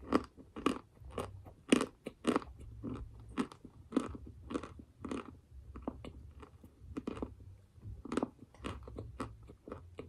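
A person chewing and crunching a lump of edible chalk-type mineral, with steady crisp crunches about two a second.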